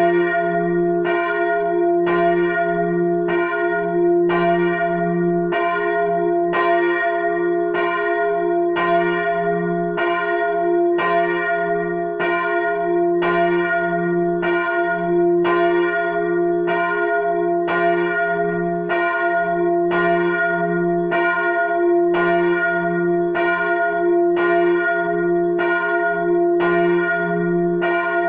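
The largest church bell, tuned to f', swinging alone and striking evenly about once a second, each stroke ringing on into the next with a deep hum beneath.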